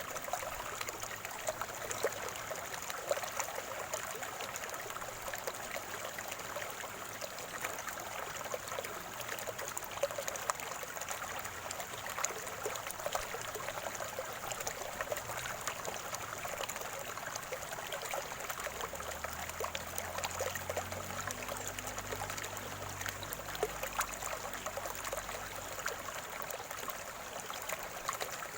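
Shallow water of a small spring-fed stream trickling and gurgling steadily over stones, with many small splashes. A faint low hum passes underneath about two-thirds of the way through.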